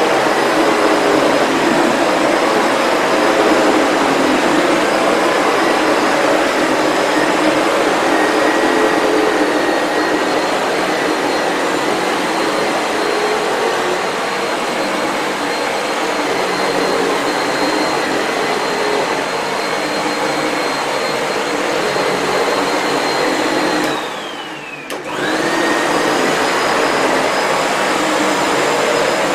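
Sebo Felix upright vacuum cleaner running steadily while its powerhead is pushed back and forth over a shag rug, a steady rushing hum with a high motor whine. About 24 seconds in, the whine glides down and the sound fades briefly, then the motor comes back up to speed within about a second.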